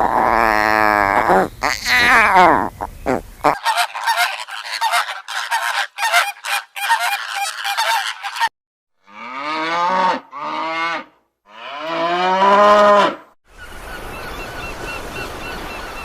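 A string of animal sound clips cut one after another: long wavering calls, then a fast clattering run of clucking, then three honking calls, the last and loudest about a second long. A steady faint buzz follows near the end.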